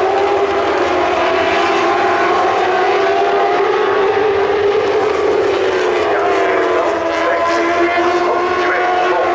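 Grand Prix racing motorcycle engines running at high revs, several engine notes overlapping and slowly drifting in pitch, with a shift in the notes about seven seconds in.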